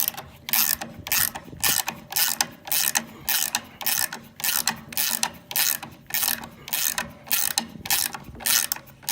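Ratchet wrench cranked back and forth in steady strokes, about two a second, each stroke a quick run of clicks. It is tightening down a threaded rod on a jig that pulls a framed wall plumb.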